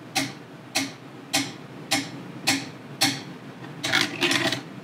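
Evenly spaced sharp ticks, a little under two a second, with a quick run of rapid ticks near the end.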